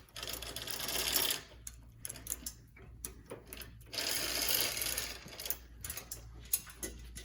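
Bicycle chain clattering as it is fed through the rear derailleur's pulley wheels, in two runs of about a second and a half each, with loose clicks of chain links in between.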